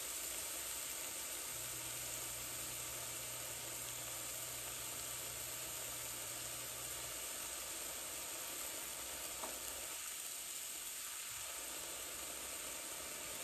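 Bacon frying in a cast iron skillet, with a steady sizzle.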